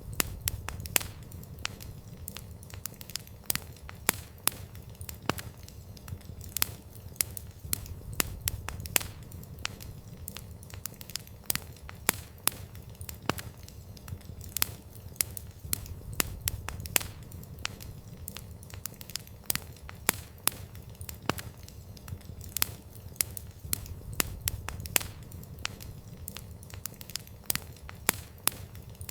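Wood campfire crackling: irregular sharp pops and snaps several times a second over a steady low rumble of the flames.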